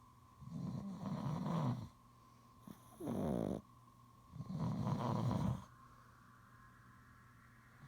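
Snoring of someone sound asleep: three snores about two seconds apart, the middle one short and falling in pitch, then a pause of a couple of seconds.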